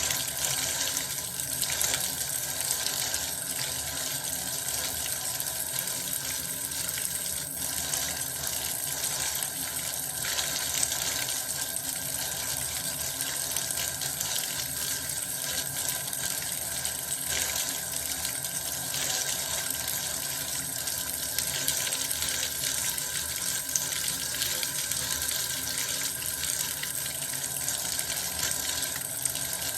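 Water running steadily from a tap into a bath, a continuous even rush with no breaks.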